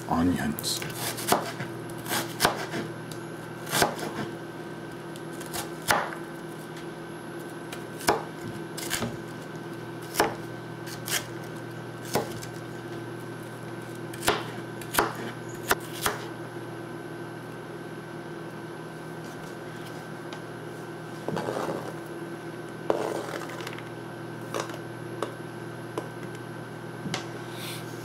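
Chef's knife chopping a white onion into dice on a plastic cutting board: separate sharp knocks every second or two, thinning out about halfway through.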